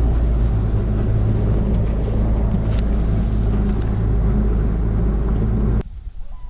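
Bass boat's outboard motor running steadily at speed with the boat under way, a strong low, even drone. It cuts off suddenly near the end.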